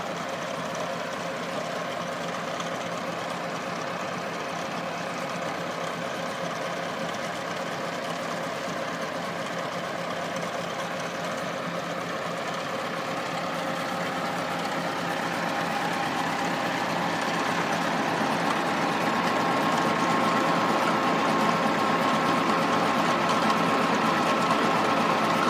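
Massey Ferguson 385 tractor's four-cylinder diesel engine running steadily under load, driving a belt-and-pulley line shaft to a tubewell pump through its PTO, with a steady whine over the engine. It grows louder from about halfway through.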